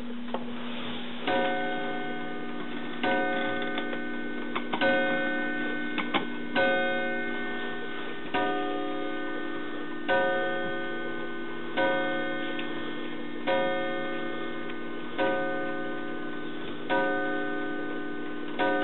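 The 1915 Ingraham De Soto 8-day mantel clock striking eleven times, a stroke about every 1.7 seconds, each stroke ringing on and fading, with the clock ticking underneath.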